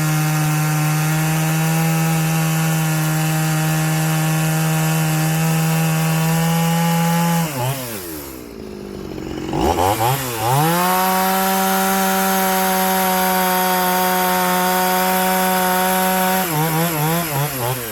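Two-stroke chainsaw fitted with a big bore kit, running at high revs while cutting wood. The revs drop sharply about seven seconds in and pick back up, then waver unevenly near the end as the throttle comes off.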